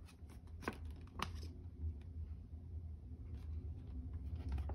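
Quiet room tone with a steady low hum, broken by two short faint clicks about a second in and a few fainter ticks later.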